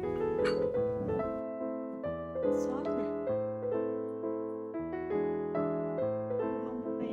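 Background piano music: a slow melody played over held chords.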